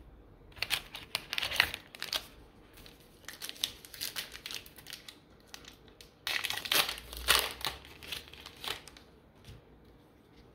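Plastic-foil wrapper of a baseball-card pack crinkling and tearing as the pack is handled and ripped open, in two main bouts of irregular crackle about half a second in and again about six seconds in, with lighter rustling between.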